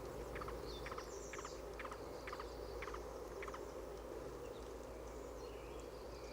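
Faint outdoor nature ambience: a steady low rumble, with short ticks or splashes about twice a second that stop about three and a half seconds in, and a few faint high chirps.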